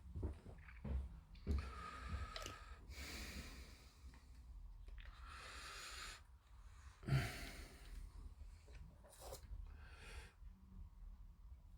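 Masking tape pulled off the roll in several short rasping strips, with small knocks of handling in between.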